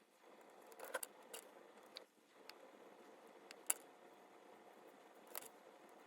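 Scattered small clicks and taps of watchmaker's tweezers and screwdriver on the metal parts of an Omega cal.1012 movement being taken apart, about seven in all, the sharpest a little under four seconds in.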